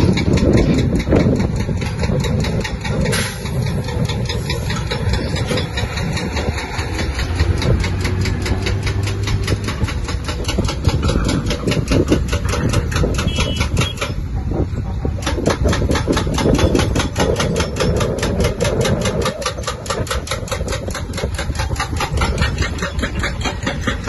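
Heavy diesel construction machinery running continuously, with a rapid, even knocking throughout.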